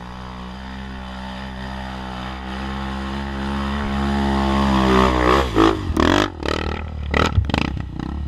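Dirt bike engine running steadily and growing louder, then from about two-thirds of the way in revving hard in several sharp bursts, its pitch swinging up and down, as it works up a steep muddy climb.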